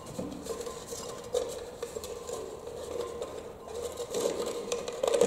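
Folded paper slips rustling and crackling as a hand stirs through them in a small glass bowl, with light taps of fingers and paper against the glass.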